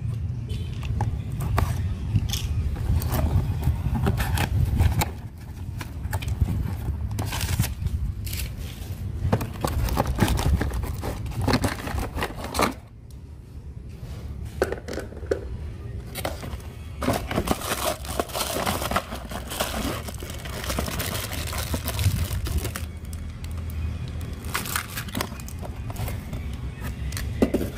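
A cardboard toy box being opened and its plastic and paper packing crinkled, torn and rustled as the toy is unpacked, in irregular crackles and scrapes over a steady low rumble.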